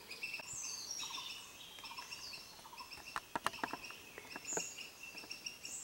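Faint jungle birdsong: short chirps and warbling calls over a steady high insect-like trill, with a few soft clicks about halfway through.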